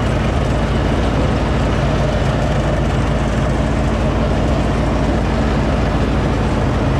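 John Deere riding mower running steadily at working speed while mowing, the engine's even drone under the rushing noise of the cutting deck and grass collector.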